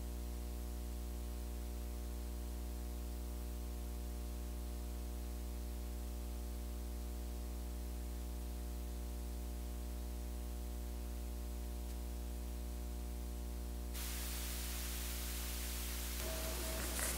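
Steady electrical mains hum with a stack of evenly spaced overtones, and no music or speech. About fourteen seconds in, a hiss rises over it.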